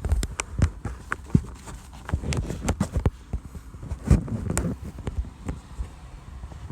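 Handling noise of a phone being picked up, moved and set in place: irregular clicks, taps and knocks with low rumbling between them.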